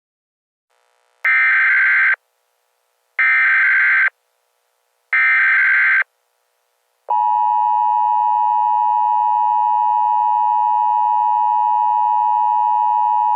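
Emergency Alert System header: three short, buzzy data bursts of the SAME code, each about a second long and about a second apart. Then, from about seven seconds in, the long steady EAS attention tone begins.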